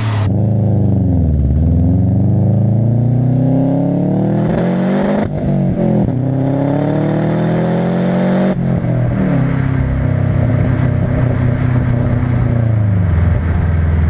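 Subaru Impreza's turbocharged flat-four engine revving. Its pitch climbs, drops sharply twice, about five and eight and a half seconds in, and then sinks back to a steady idle near the end.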